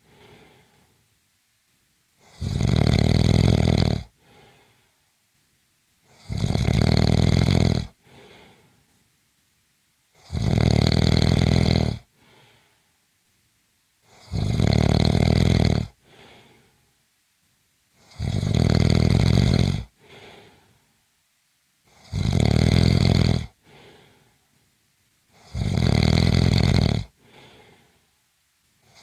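A person snoring in a steady rhythm: seven loud snores about four seconds apart, each followed by a much fainter short sound.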